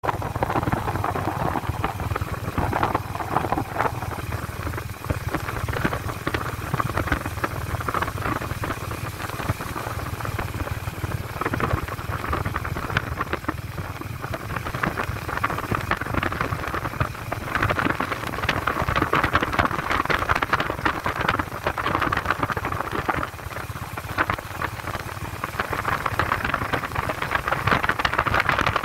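Honda H'ness CB350's air-cooled single-cylinder engine running at cruising speed as the motorcycle rides along, with a steady low engine drone under the rush of passing air, which swells and fades a few times.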